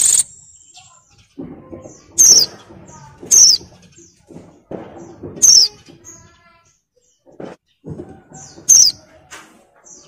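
Female white-eye (pleci) in breeding condition calling: about five loud, sharp, high calls, each a quick downward-sliding note, one to three seconds apart, with fainter notes between. This is the female call used to draw a male into song.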